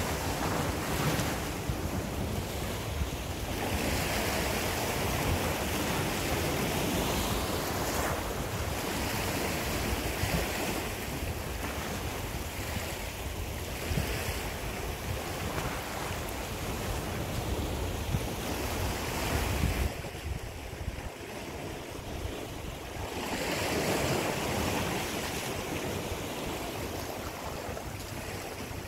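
Sea waves breaking and washing over a rocky shoreline, the surge swelling and ebbing every few seconds. Wind rumbles on the microphone and eases about two-thirds of the way through.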